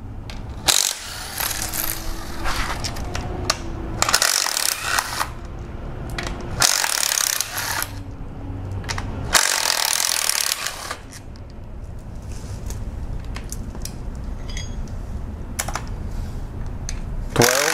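Cordless impact driver with a 10 mm socket rattling out the aluminium timing-cover bolts of a 2.4 Multiair four-cylinder engine, in five hammering bursts of one to two seconds each. After these comes a quieter stretch with short metallic clinks of loosened bolts and the socket being handled.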